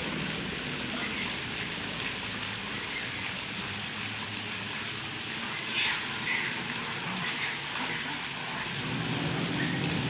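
Steady rushing of a small waterfall pouring into a pool, with a few brief splashes about six seconds in.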